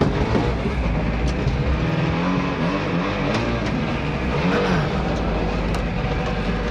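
Small boat motor revving up and down, its pitch rising and falling, over the steady rush of river flood water.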